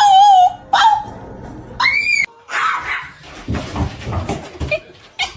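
Dog vocalizing with high, wavering whine-howls: one cry in the first half-second, a short one just after, and a rising-then-falling whine about two seconds in, followed by shuffling and knocking noises.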